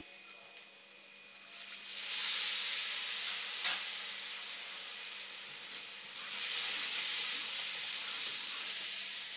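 Onion, ginger-garlic paste and ground spices sizzling in hot oil in a steel karahi while a ladle stirs them. The sizzle swells about two seconds in and again after six seconds, with one light knock a little before four seconds.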